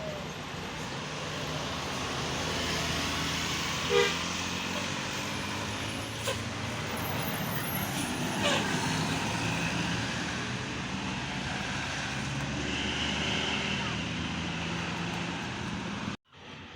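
Diesel bus engine running amid roadside traffic and voices, with a short horn toot about four seconds in; the sound cuts off abruptly near the end.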